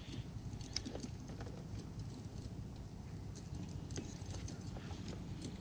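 Culling-tag clips and cords clinking and rattling at a bass boat's livewell as a fish is put on the next tag: a scattering of small clicks over a low steady rumble.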